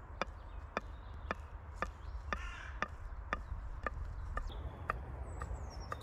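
Knife chopping wild garlic leaves finely, in a steady rhythm of sharp cuts about twice a second.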